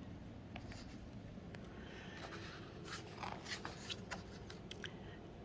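Faint rustling of paper with a few light clicks: the pages of a picture book being handled.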